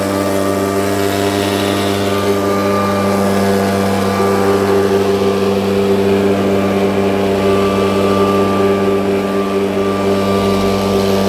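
Gasoline engine blower running steadily at high throttle, a constant engine note with a rushing of air, as used for blowing snow.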